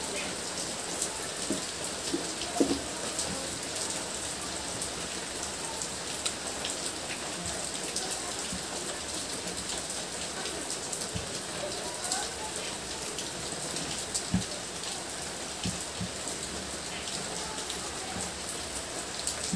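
Steady rain falling, with scattered small clicks and mouth sounds of someone eating rice and curry by hand.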